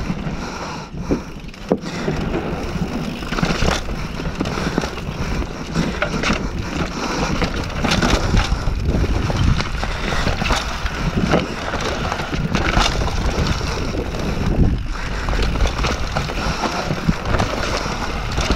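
Mountain bike descending a rough dirt and rock trail at speed: tyres running over the ground and the bike rattling, with irregular knocks from bumps and roots, and wind on the microphone.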